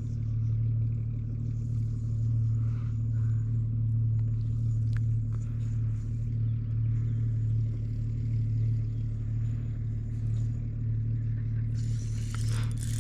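A boat motor running with a steady low hum. Near the end a brighter rustling and rattling joins it.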